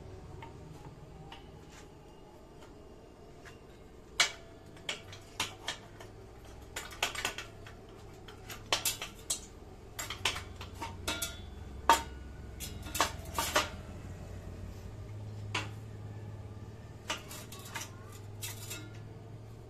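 Irregular sharp metallic clinks and knocks of metal parts being handled, some in quick clusters, starting about four seconds in, over a low steady hum.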